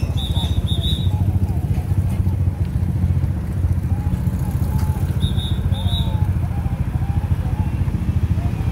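An off-road 4x4's engine idling steadily close by, a fast even pulsing rumble, with faint voices behind it. Twice, about a second in and again about five seconds in, a short high double chirp sounds.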